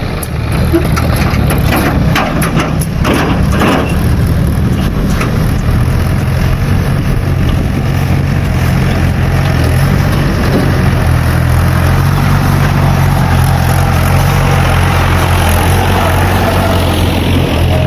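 Heavy diesel engine running steadily at a constant speed, with a few short clattering knocks about three seconds in.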